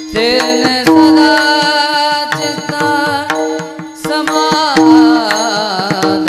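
Devotional bhajan singing: a voice holds long, high, ornamented notes on vowels, with tabla strokes and a steady drone underneath.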